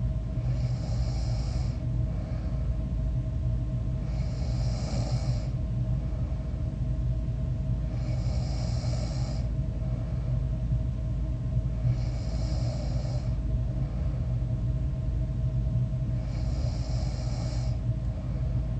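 A sleeping person snoring, one breath about every four seconds, over a steady low hum.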